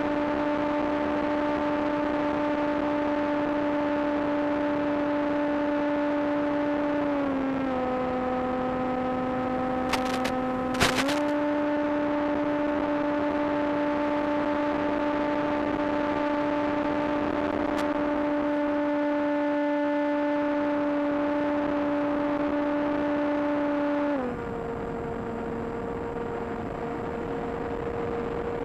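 Electric motor and propeller of a small foam RC plane, a steady whine that steps down in pitch as the throttle is eased, comes back up a few seconds later, then drops lower and quieter near the end. Two sharp clicks come close together in the middle.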